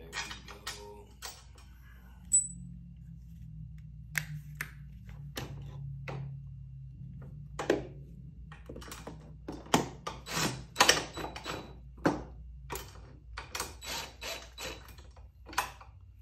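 Cordless drill driving long screws into a motorcycle's seat mount: the motor hums in a long spell through the first half, with many irregular sharp clicks and knocks, the loudest about two seconds in and more crowded in the second half.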